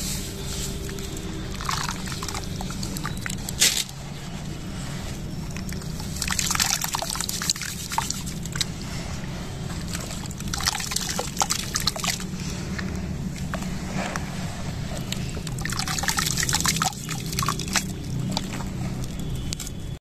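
Wet sand-and-cement chunks squeezed and crumbled by hand in a plastic basin of muddy water: sloshing, trickling and splashing in bursts a few seconds apart, with one sharp click just before the 4-second mark, over a steady low hum.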